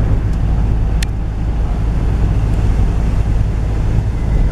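Steady low rumble of a car driving on a wet road, heard from inside the cabin, with a single sharp click about a second in.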